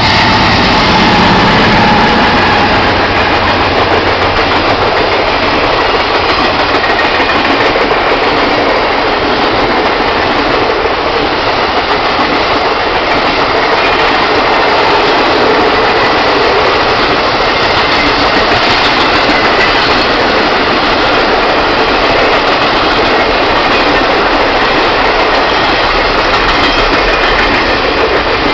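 Norfolk Southern GE Dash 9-40CW diesel locomotive passing close with its engine running, followed by Triple Crown RoadRailer trailers on rail bogies rolling past in a long, steady, loud rush of wheel and rail noise.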